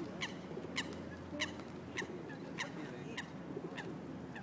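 A bird calling: a steady series of short, high, falling chirps, about three every two seconds.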